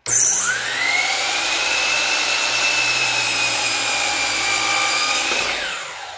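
DeWalt sliding miter saw starting with a whine that climbs in pitch over the first second, then running steadily as its blade cuts a 45-degree miter through baseboard, and winding down with a falling whine near the end.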